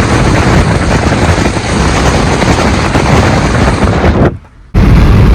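Loud vehicle and wind noise, with wind buffeting the microphone. The sound cuts out briefly about four seconds in, then comes back with a heavier low rumble.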